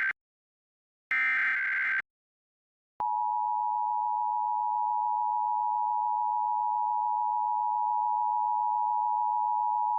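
Emergency Alert System test: one last SAME header data burst, a brief harsh electronic warble, about a second in. About two seconds later the EAS two-tone attention signal starts, a pair of steady tones sounded together and held without a break.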